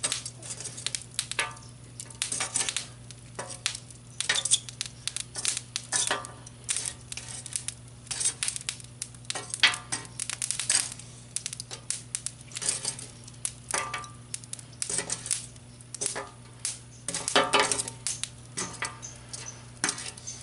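Metal tongs picking up and setting down chunks of lit lump charcoal on a concrete table. There are irregular clinks and clatters as the tongs grip and the coals knock against each other and the slab.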